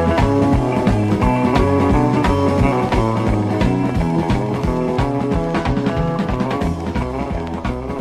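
Background music with a steady beat, growing slightly quieter near the end.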